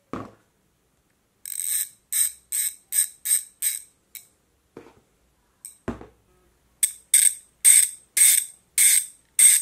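Two BMX cassette rear hubs ratcheting, their freewheel pawls clicking as each driver is turned back by hand in short strokes. First come about six quick buzzing bursts from one hub, then a few handling knocks, then seven louder, brighter bursts from the second hub: two hubs of the same build with clearly different freewheel noise.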